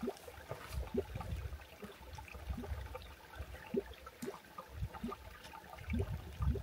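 Small stream trickling and gurgling over rocks, in short irregular bubbling notes, with an uneven low rumble underneath.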